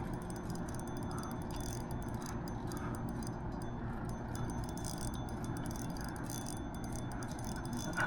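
Fishing reel ticking lightly and irregularly as a hooked carp is played, over a steady low background rush.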